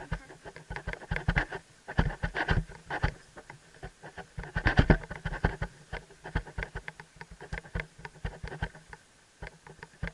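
Helmet-mounted camera knocking and rattling against the riding helmet, a quick irregular clatter of clicks and knocks that jolts with the horse's walking stride.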